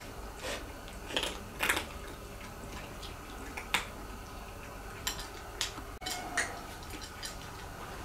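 Scattered light clicks and small clatters, a dozen or so irregularly spaced over several seconds, the loudest cluster about a second in.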